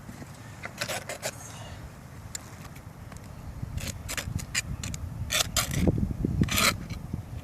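Scattered scrapes and clicks of hand work on asphalt roof shingles, with a low rumble that grows louder in the second half.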